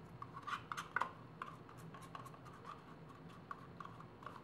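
Spatula scraping thick soap batter out of a small cup into a mold: a string of small, irregular scrapes and ticks, the loudest about a second in.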